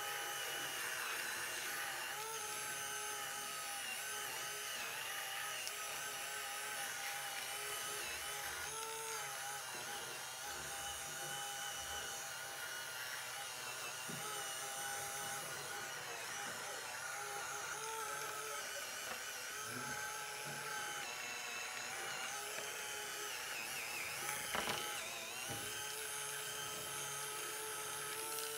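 Small electric motor of a handheld facial cleansing device with a massage head, running on its highest setting with a steady whine. The pitch dips briefly a few times.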